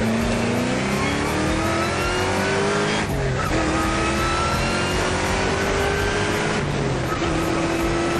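Pontiac Trans Am engine pulling hard under wide-open acceleration, heard from inside the cabin: the pitch climbs steadily through each gear and drops at two upshifts, about three seconds in and near the end.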